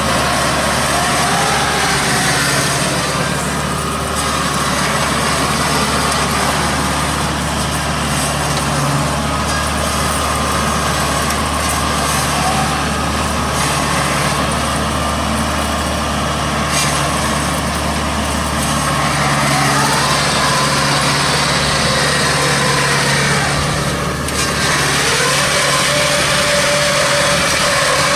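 Engine of a homemade straw-gathering machine built from an old harvester, running steadily, with a higher whine that glides up and down in pitch now and then.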